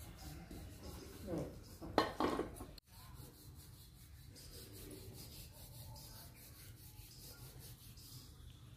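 Rolling pin rubbing back and forth over a round board as roti dough is rolled out, a faint steady scraping, with a couple of short louder sounds about two seconds in.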